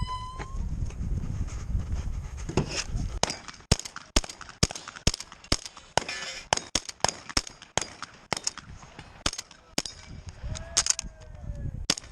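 A shot timer's start beep ends, and then shotguns fire a long string of quick shots over several seconds in a competition stage.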